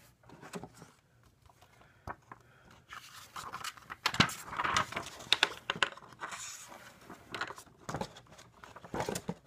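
Pages of a paper instruction booklet rustling as it is handled, opened and turned, with a few light knocks. The rustling is busiest in the middle.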